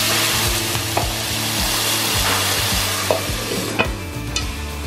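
Water poured into a hot nonstick frying pan around frying eggs, setting off a loud sizzle of spitting and steaming that dies down a little before the end. A few sharp clicks of pan or utensil sound through it.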